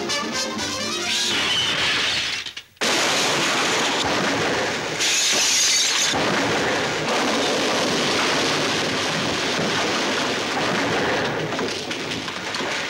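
Cartoon music gives way, about a second in, to a long crash of smashing and shattering glass. The crash continues for about ten seconds.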